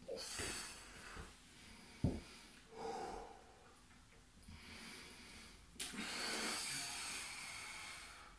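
A man breathing hard through a core workout: a string of heavy, breathy exhales, the longest near the end. About two seconds in there is one sharp knock, the loudest sound, and a lighter click just before the last long breath.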